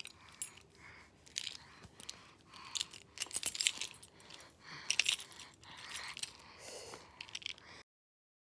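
A bunch of metal keys jangling in short shakes, several times over, before the sound cuts off suddenly near the end.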